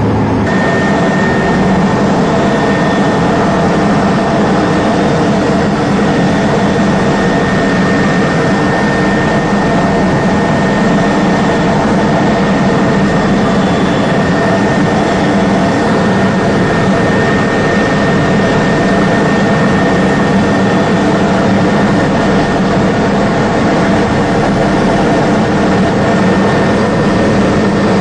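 Steady, loud helicopter turbine and rotor noise heard from inside the cabin, with a constant high whine running through it.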